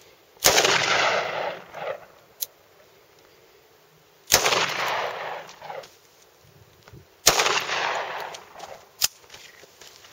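Three handgun shots, each a sharp crack followed by a long echo that dies away over about a second and a half. The second comes about four seconds after the first, and the third three seconds after that. Two short, sharp ticks fall between the shots.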